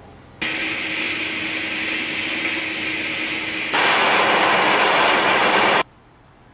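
A loud steady hiss with a faint low hum, then, about three and a half seconds in, the louder, even hiss of a gas blowtorch flame heating a steel thumb screw red-hot; it cuts off suddenly near the end.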